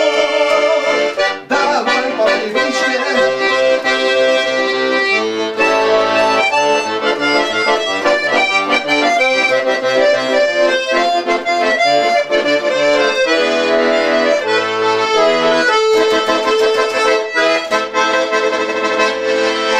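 Bayan, a Russian chromatic button accordion, playing a tune solo, with melody notes changing over held and repeated lower notes.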